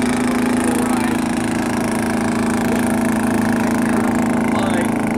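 Lawnmower engine of a small home-built boat, driving an outboard lower unit, running as a steady, even drone while the boat planes.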